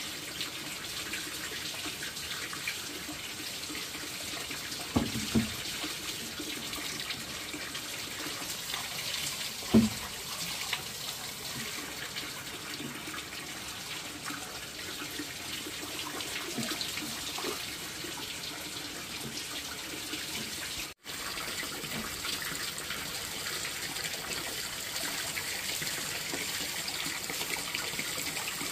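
Water running steadily from a tap into a sink or basin, with a few brief knocks, the loudest about ten seconds in.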